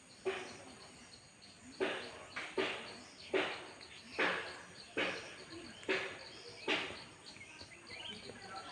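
Steady high-pitched insect chirring, with a series of about nine sharp knocks or strikes, mostly about 0.8 s apart, each dying away within half a second.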